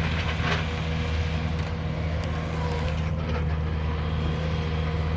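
A steady low hum, like a motor or engine running without change.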